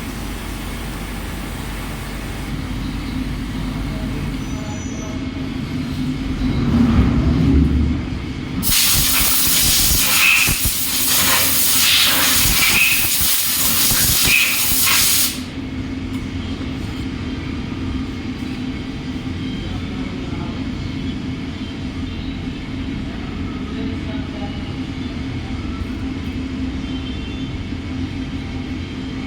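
Machine-shop hum from a running CNC machine. About nine seconds in, a loud hiss starts, runs for about six seconds and cuts off suddenly, and then the hum carries on.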